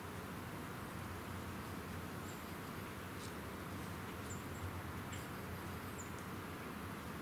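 Quiet woodland ambience: a steady hiss with a handful of faint, very high, short chirps scattered through it and a couple of faint ticks.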